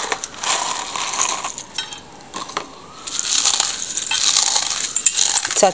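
Cornflakes being crushed between the fingers, a dry crackling crunch that eases off midway and then picks up again.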